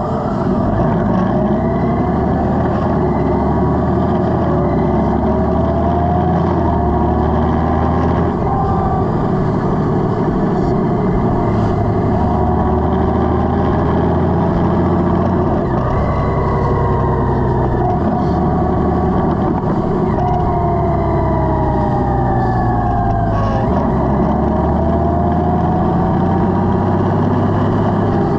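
Honda Gold Wing's flat-six engine running under way, its pitch climbing steadily and then dropping back each time the dual-clutch transmission shifts up, over a steady low rush of wind and road noise.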